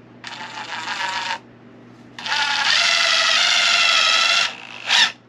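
Cordless drill, a Milwaukee M12 hammer drill, boring pilot holes into a 2x4 frame piece, run gently. A short run of about a second is followed by a longer, louder run of a little over two seconds, then a brief burst of noise near the end.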